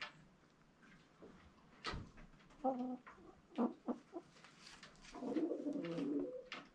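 Hen on a straw nest making soft low clucks: a single cluck about two and a half seconds in, a few quick ones near four seconds, then a longer low wavering call about five seconds in.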